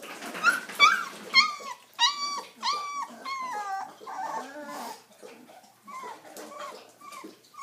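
Three-week-old Redbone Coonhound puppies yelping and whimpering: a run of loud, high cries about two a second over the first few seconds, then softer overlapping whimpers.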